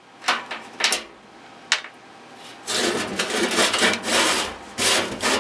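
Metal knocking and scraping as a stuck neon sign transformer is wiggled back and forth against the sign's sheet-metal housing: a few separate knocks, then about three seconds of continuous scraping and rattling.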